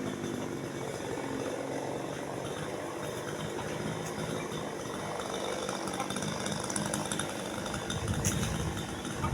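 Chainsaw engine running steadily at a low, even level, growing a little louder about eight seconds in.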